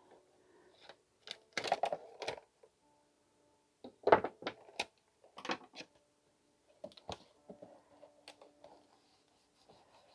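Heavy-duty tape being handled, cut and pressed onto a plastic-wrapped card box: scattered crackles and sharp clicks in short clusters, loudest about four seconds in.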